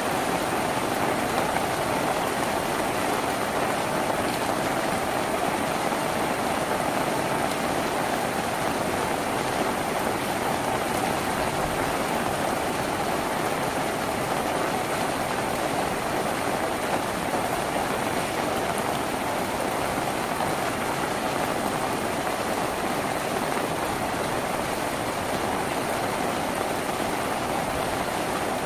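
Steady heavy rain drumming on a tin roof, an even unbroken patter.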